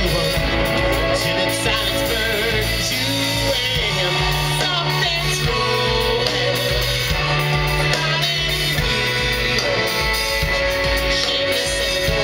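Live rock band with a horn section of saxophones and trumpet over drums, bass and keyboards, playing long held notes over a steady bass line, heard from the crowd through the festival PA.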